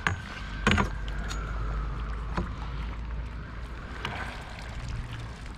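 Steady low rumble of wind on the microphone, broken by a few sharp knocks and clicks, the two loudest about half a second apart near the start. A faint thin whine runs underneath.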